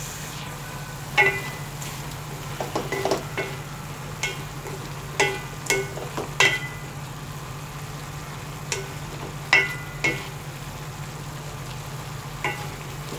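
Wooden spatula stirring chicken and shrimp in an aluminium pot, with scraping and about a dozen irregular knocks against the pot, each leaving a short metallic ring. A steady low hum runs underneath.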